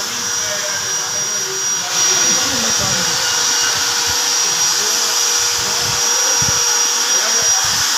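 Electric power tool running continuously with a steady high whine and hiss, the sound of marble carving work in the workshop.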